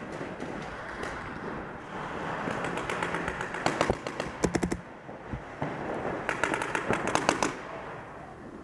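Paintball markers firing in rapid strings of shots: one string through the middle and a second, shorter one near the end.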